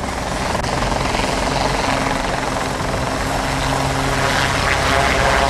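Westland Sea King helicopter flying low and hovering, its rotor beat and twin Rolls-Royce Gnome turboshaft engines making a dense, steady noise that swells during the first second.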